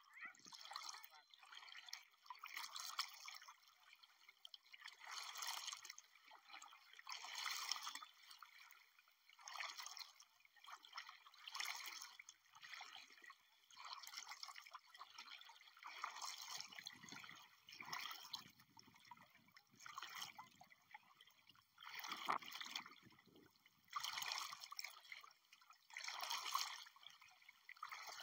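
Faint shallow water splashing and trickling, swelling in a regular rhythm about every two seconds.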